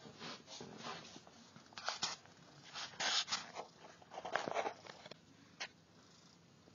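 Irregular bursts of close rustling and scuffling, about five in all, as nursing kittens squirm against their mother's fur and the blanket.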